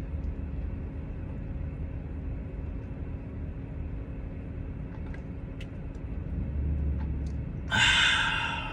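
Steady low engine rumble with a faint hum, swelling a little about two thirds of the way in, then a short loud hissing noise near the end.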